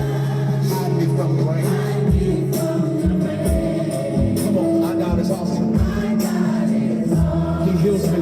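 Music with singing and a steady kick-drum beat.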